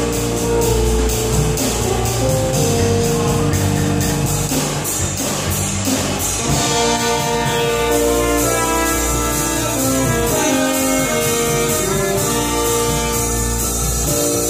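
Live jazz band playing: a brass horn carrying held melody notes over keyboards and bass, with drums keeping a busy cymbal pattern.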